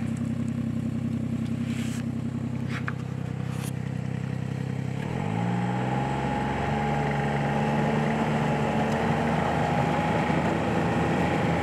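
Snowmobile engine running steadily at low speed, then speeding up about five seconds in: its pitch rises and it settles into a louder, faster run with a steady high whine over the rush of the track on snow.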